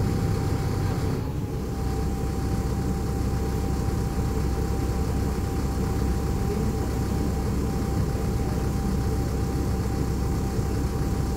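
Mercedes-Benz O500U city bus's diesel engine idling steadily while the bus stands still, heard from inside the passenger cabin. A faint steady whine runs alongside and stops near the end.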